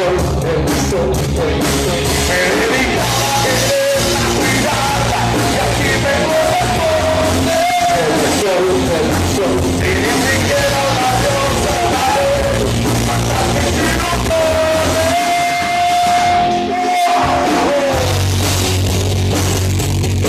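A rock band playing loud through a PA system, with a pitched lead line that bends around and holds one long note a few seconds before the end.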